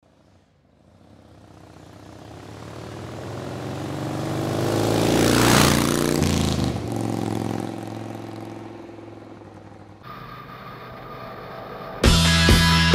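A motorcycle passing by: its engine grows steadily louder for about five seconds, peaks, then drops in pitch and fades away. Loud rock music starts about a second before the end.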